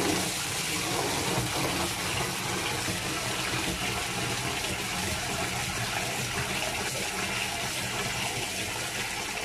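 Water running steadily from a wall-mounted faucet into a metal tin can, filling it.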